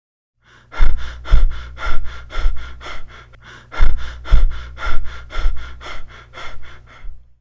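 Rapid, regular breathing, about two breaths a second, in two runs with a brief pause near the middle, over a steady low hum.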